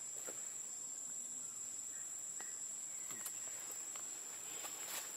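Insects droning in one steady high tone, with a few faint clicks and rustles.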